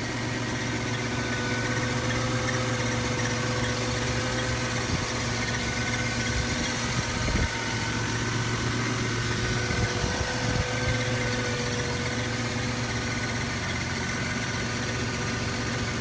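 1998 Toyota 4Runner's 3.4-litre 5VZ-FE V6 idling steadily, carrying a strange noise that the owner cannot identify and that is heard at idle but masked at higher revs. A couple of brief knocks come about seven and ten seconds in.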